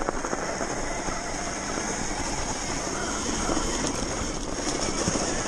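Sur-Ron electric dirt bike riding along a bumpy snowy trail: a steady high whine over constant rushing noise, with many small knocks and rattles.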